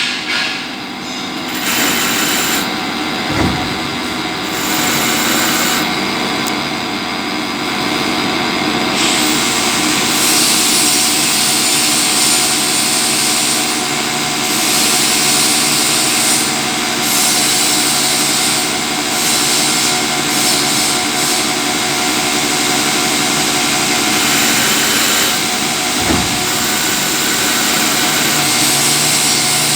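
CNC lathe running and turning a metal pulley: a steady machine hum with several held tones under a high cutting hiss that drops out and returns a few times in the first third. A brief low thump comes twice, early on and near the end.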